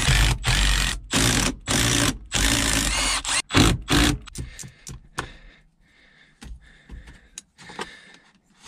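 Milwaukee cordless power tool running in short bursts, six or seven spurts over the first four seconds, backing out the small bolts that hold the manual transmission's shifter plate. After that come a few softer clicks and taps of hand tools.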